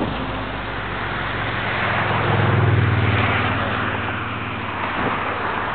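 Steady low engine hum with passing-vehicle noise, swelling to its loudest about two and a half seconds in, then easing off.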